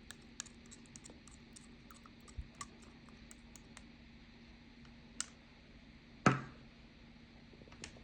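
Slime being handled: a run of small sticky clicks and pops over the first few seconds, then scattered clicks and one much louder knock with a short ring a little past six seconds in.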